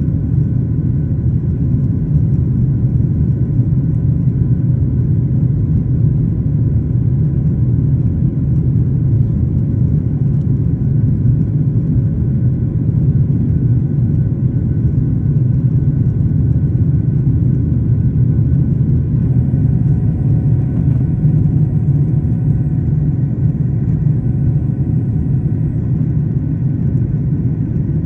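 Boeing 737-800 cabin noise: a steady low rumble of its CFM56 jet engines and airflow during the takeoff and climb, heard from inside the cabin.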